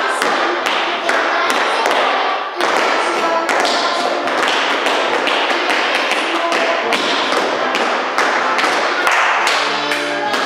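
Metal taps on two dancers' tap shoes striking a hard studio floor in fast, rhythmic patterns of many sharp clicks, over recorded music.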